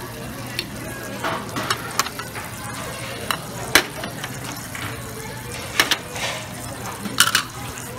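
Buffet restaurant background noise: a steady low hum under a haze of noise, with scattered sharp clicks and knocks, the loudest just before four seconds in.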